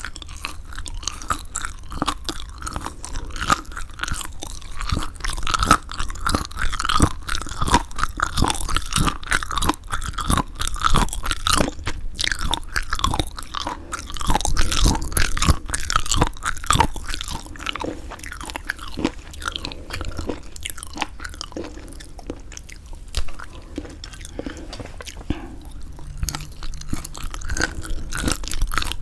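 Close-miked chewing of semi-dried squid: a dense run of small clicks and crackles from the mouth, busiest and loudest in the first half and thinning out in the second.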